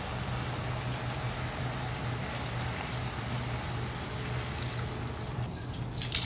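Water poured in a steady stream into a frying pan of ash gourd and scrambled egg, splashing as it fills the pan, with a low steady hum underneath. A sharp click comes near the end.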